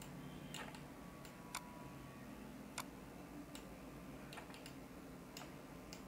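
Faint computer mouse clicks, about seven at irregular intervals, over a low steady hum.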